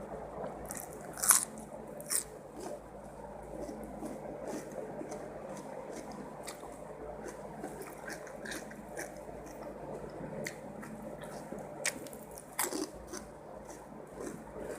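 Close-up eating sounds of a mouth chewing fried rice with stink beans: wet squishing and smacking with many small clicks, the sharpest about a second in.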